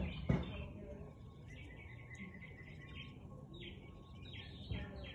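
A husky barks once near the start. Then a small bird chirps in rapid runs of short, high notes, and the barking starts again right at the end.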